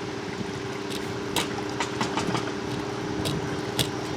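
Scattered sharp metal clicks, about five, as a windshield wiper arm puller is worked on a stuck wiper arm, over a steady low hum.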